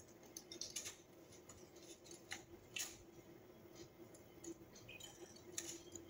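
Faint scattered clicks and taps from cage birds moving about on the wire of their cages, over a low steady room hum.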